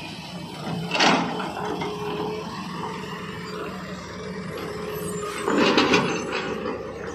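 SANY SY210C crawler excavator's diesel engine running under working load. About a second in there is a loud rush as the bucket's soil drops into a tipper truck's bed, and near the end a longer, louder rush as the bucket digs and scrapes into the dirt of the pit.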